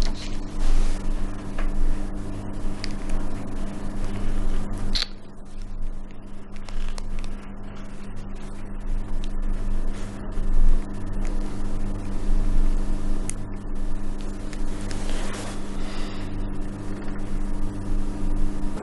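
Steady low hum with a slow throbbing underneath, unchanging except for a brief sharp tick about five seconds in.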